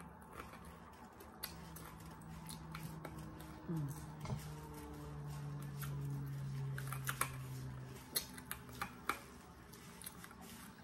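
Corn-dog batter being nibbled off a wooden stick: a scatter of small crisp clicks and crunches. From about a second in until about eight seconds a low steady hum of a person's voice runs under it, with a short slide in pitch near the middle.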